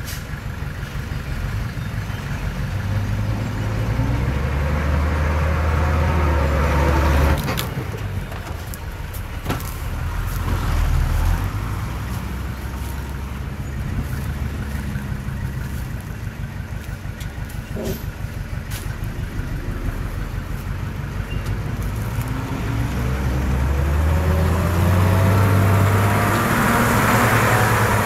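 Komatsu D31PX crawler bulldozer's diesel engine running, swelling in level twice as it pulls harder: about three seconds in and again near the end. A few knocks come in between.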